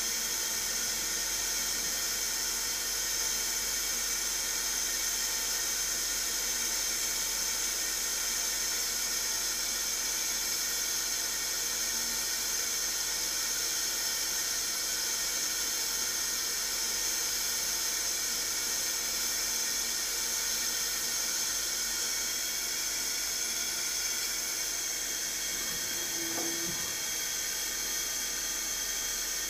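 Manurhin KMX 326 Swiss-type CNC lathe running: a steady high-pitched whine over hiss, with a brief lower tone near the end.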